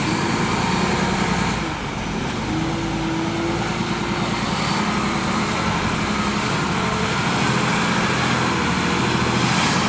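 Front-discharge concrete mixer truck's diesel engine running steadily as the truck pulls across soft ground.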